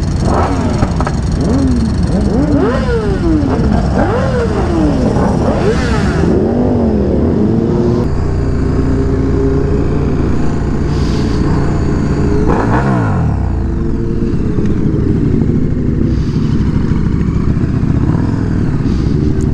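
Sport motorcycles on a group ride: engine pitch rising and falling over and over as the bikes rev through the gears, then settling into steady cruising, with one rev dropping away sharply about twelve seconds in.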